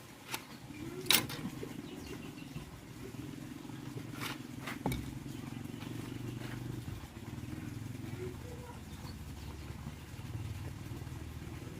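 Restored tractor engine running steadily at idle, with a few sharp clicks over it in the first five seconds.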